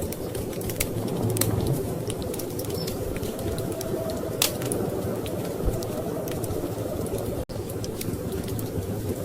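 Wood fire in a fireplace crackling, with irregular sharp pops over a steady low rumble of storm wind. The sound drops out for an instant about seven and a half seconds in.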